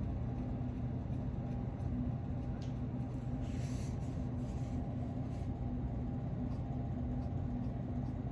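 A coloured pencil scratching faintly on paper as it colours, over a steady low background hum.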